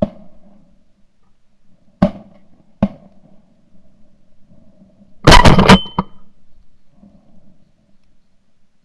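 Sharp bangs: two single ones about a second apart, then a much louder burst of several in quick succession lasting about half a second, with a brief ringing tone after it.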